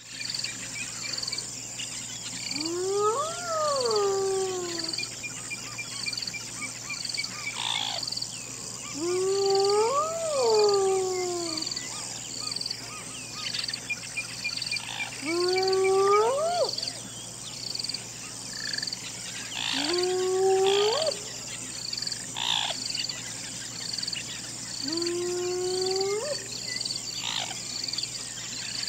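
Spotted hyena whooping: five long calls about five seconds apart, each gliding up in pitch, the first two falling away again at the end. Behind them runs a high chirping that pulses about once a second.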